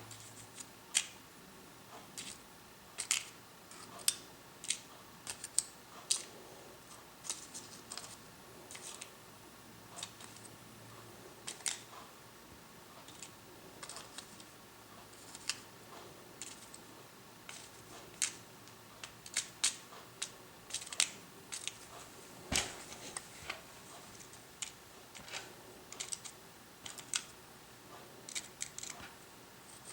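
Small metal parts of a disassembled American 1100 series padlock (pins, springs and core) being handled and set down on a hard surface to lay them out in order: light, irregular clicks and taps, with one louder knock a little past the middle.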